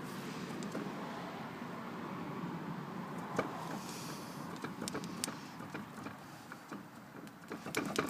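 Steady rumbling noise of a VW Bora on the move, the sound of a bad wheel bearing. It is broken by a few sharp clicks, then a quick run of louder clicks and knocks near the end.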